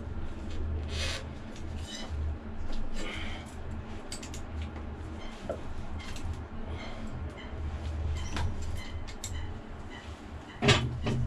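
Scattered small metallic clicks and clinks from gloved hands working on the flexible drive plate bolted to a Kubota V2003 marine diesel's flywheel, with a louder knock near the end. A low rumble comes and goes underneath.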